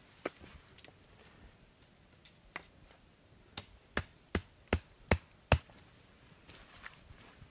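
A hand tool striking wood: two light taps, then about a second and a half later a quick even run of six sharp blows, about two and a half a second, growing louder.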